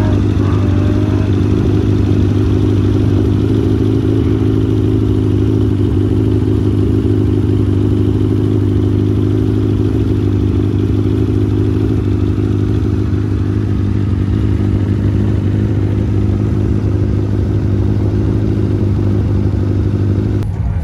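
Sand rail engine running steadily: a loud, even drone that holds one pitch throughout, with no revving.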